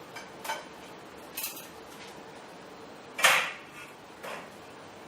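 Hard objects being handled, clinking and knocking: four short knocks, the loudest about three seconds in.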